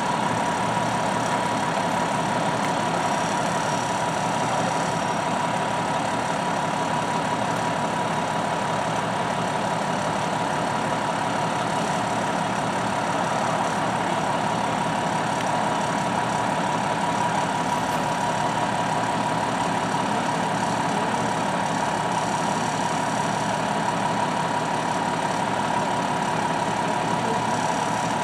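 Fire engine idling steadily at the scene, with a steady whine running through the engine noise.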